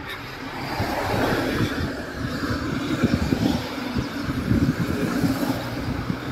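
A small hatchback car drives past and on up the sloping street, its engine and tyres on asphalt swelling from about a second in and staying loud through the middle.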